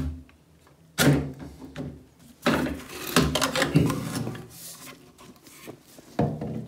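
Plastic bathtub trap and corrugated overflow hose knocking and scraping against the tub frame and access-hatch edge as they are pulled out: a sharp knock about a second in, a longer stretch of scraping and rattling in the middle, and another knock near the end.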